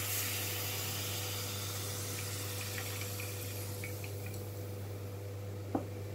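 Herbal decoction (keezhanelli kashayam) poured from a pan through a plastic tea strainer into a steel bowl: a steady splashing pour that slowly thins out, with a short knock near the end.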